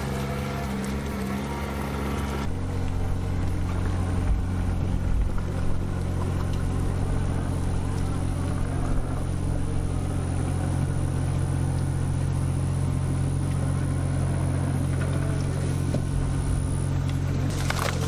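John Deere 26G compact excavator's diesel engine running steadily under work. Near the end, branches and wood crackle and snap as the machine pushes into brush.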